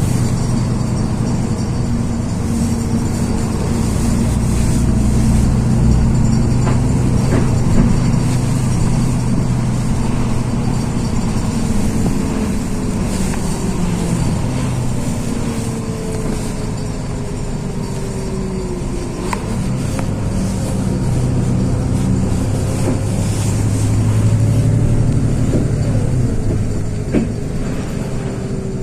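LiAZ 6213 articulated city bus heard from inside while driving: a steady low engine drone, with a whine that slides slowly down in pitch several times, and a few light clicks and rattles.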